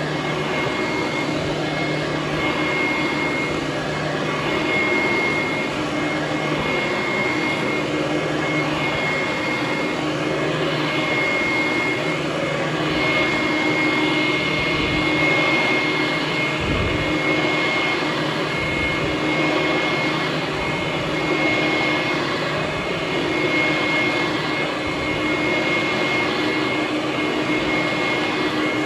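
Direct-air vacuum cleaner running steadily on carpet, with a high whine over a loud rush of air; it sounds like a jet engine running.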